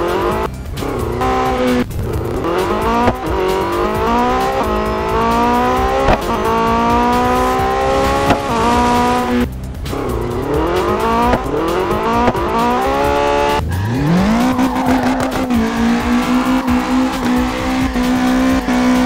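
Sports-car engine sound effect revving up through the gears in repeated climbing sweeps, breaking off twice, then rising again and holding a steady high note for the last few seconds.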